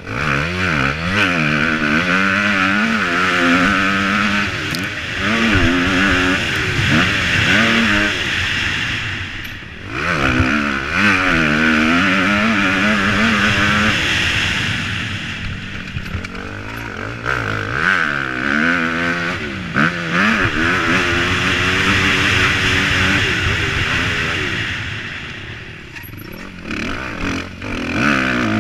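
Motocross dirt bike engine being ridden hard, its pitch rising and falling again and again as the throttle opens and closes through the gears, with a few brief lulls off the throttle. Heard close up from a helmet-mounted camera.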